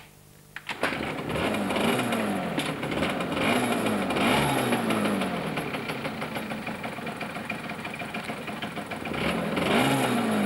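A car engine catches under a second in and runs, revved several times so that its pitch rises and falls.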